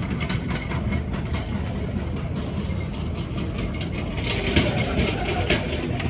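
Airport terminal ambience: a steady low rumble, with a few sharp clicks or knocks near the end.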